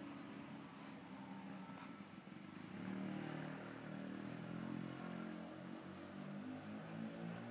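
City street ambience, a steady background din of traffic and passers-by. From about three seconds in, faint music with low notes that change every fraction of a second joins it.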